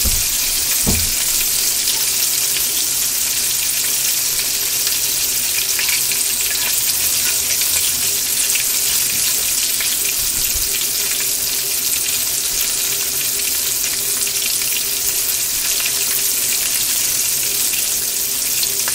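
Breaded squirrel pieces frying in hot oil in a pan: a steady sizzle with scattered small crackles.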